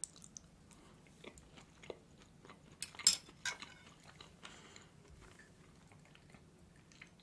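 Soft chewing of a bite of shortbread pie topped with strawberry jelly: small scattered wet mouth clicks, with a couple of sharper clicks about three seconds in.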